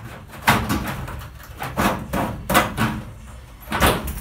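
Electrical cable being pulled and worked through the holes in a van's bare sheet-metal body panels: a series of about six rough scrapes and knocks against the metal, loudest about half a second in and again near the end.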